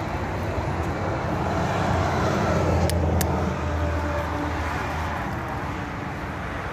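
A car driving past, its engine and tyre noise swelling to a peak two to three seconds in and then fading. Two short sharp clicks come about three seconds in.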